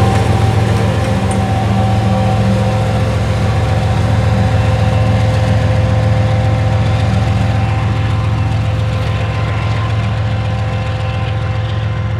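Union Pacific GE wide-cab diesel locomotive's engine running with a steady low drone as the slow intermodal train moves away, gradually fading.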